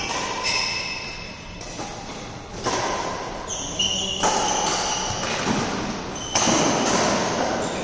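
Badminton rally: several sharp racket strikes on the shuttlecock, each echoing in a large hall, with some short high squeaks in between.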